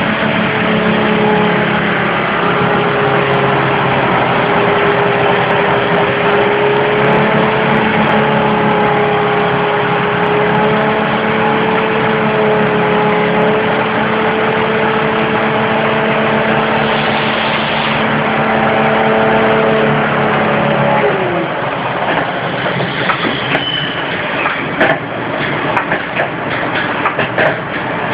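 Machinery running with a steady hum and several steady tones; about 21 seconds in it winds down, one tone dropping in pitch as it stops, and irregular clanks and knocks follow.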